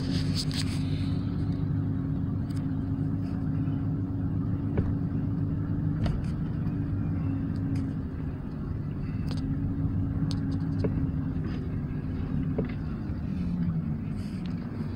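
Car driving, its engine hum and tyre and road noise heard from inside the cabin, steady with a few small clicks and rattles, the engine note easing slightly near the end.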